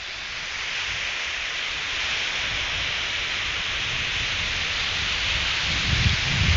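Ocean surf breaking and washing up the beach: a steady hiss of foaming water that slowly builds, with low rumbling near the end.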